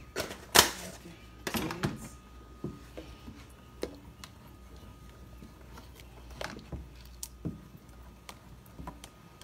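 Wooden spoon stirring thick bean batter in a stainless steel bowl, knocking and scraping against the metal at irregular intervals. The sharpest knock comes just after the start, and a quick cluster follows a second or so later.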